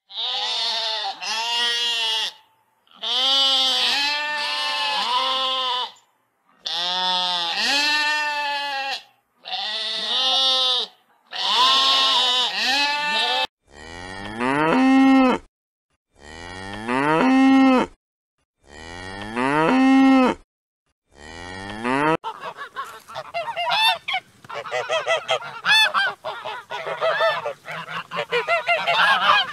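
Sheep bleating, a series of calls in pairs and groups. From about 14 seconds a cow moos four long times. For the last seven seconds or so, a domestic goose honks many times in quick succession.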